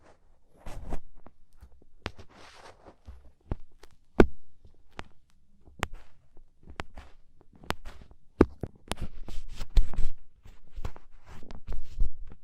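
Ear pick scraping and clicking against earwax inside an ear canal: irregular scratchy rasps and sharp clicks, getting busier in the last few seconds.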